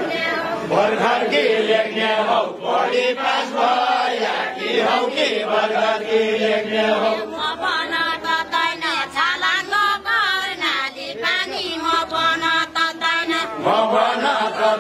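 A group of people singing a Deuda folk song together, several voices on one chant-like melody in phrases of a few seconds.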